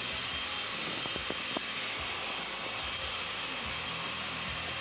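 Countertop blender running steadily, blending a thin green salsa, with a faint steady high whine from the motor.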